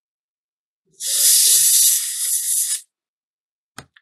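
Can of compressed-air electronics duster sprayed in one loud, steady hiss about two seconds long, starting about a second in, blowing excess cleaning solvent off pistol parts. A single short click near the end.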